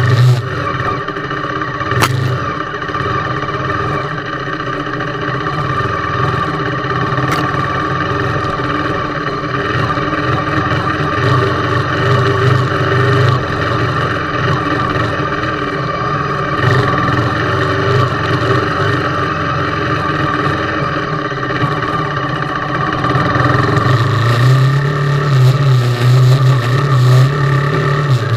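KTM Duke 390's single-cylinder engine running through an off-road ride, its note swelling and easing with the throttle and strongest near the end. There is a sharp click about two seconds in.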